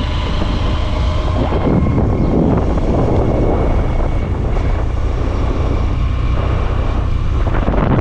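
Motorcycle engine running steadily as the bike rides along, a continuous low drone with wind and road noise over it.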